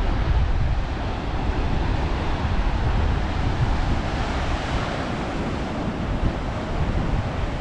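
Ocean surf washing in, swelling about halfway through, with wind buffeting the microphone as a low rumble.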